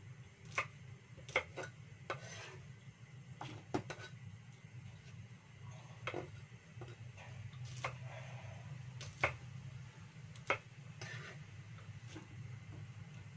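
Cleaver chopping green beans on a thick wooden chopping board: sharp knocks at irregular intervals, roughly one a second, over a steady low hum.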